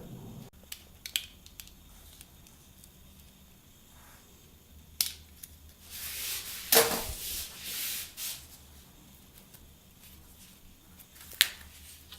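An old bicycle handlebar grip is being cut and worked off the bar. There are scattered clicks and handling noises, a louder stretch of scraping and cutting about six to eight seconds in, and a sharp click near the end.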